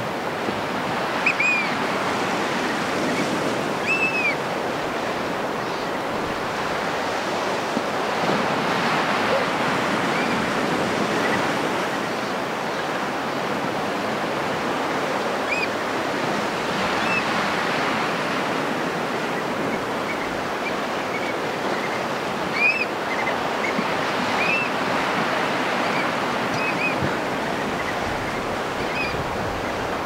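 Steady wash of ocean surf, with short, high whistled calls of Black Oystercatchers scattered through it, several coming in quick pairs.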